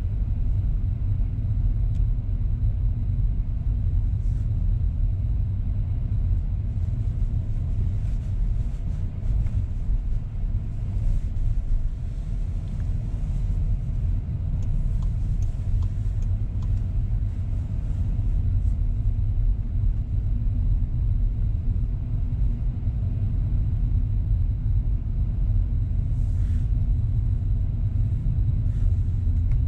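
Car driving on town streets, heard from inside the cabin: a steady low rumble of engine and tyre noise.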